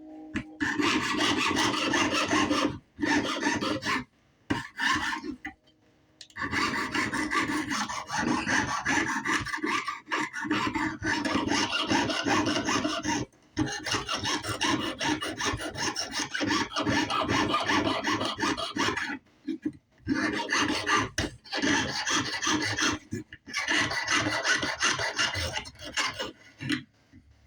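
Jeweler's saw cutting out a traced piece with quick back-and-forth strokes, stopping briefly several times and then going on.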